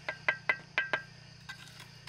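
Butt of a trowel handle tapping a hollow clay brick down into wet mortar: about five quick knocks in the first second, each with a short ring, then one fainter tap.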